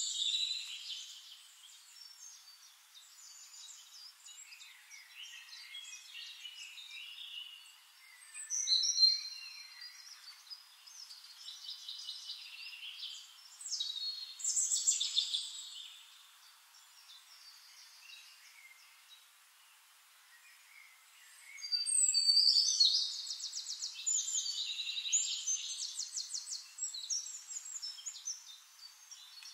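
Forest songbirds singing: phrases of chirps and rapid trills come and go, loudest just after the start, about nine seconds in, around fifteen seconds, and in a long spell from about twenty-two seconds, with quieter stretches in between.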